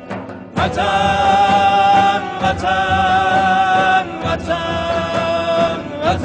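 Persian patriotic song: two long held notes over the accompaniment. The first comes in about half a second in, and after a brief break a second, slightly lower note is held until near the end.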